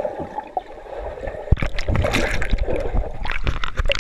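Water gurgling and sloshing around a GoPro camera held underwater in a swimming pool, with irregular clicks and knocks.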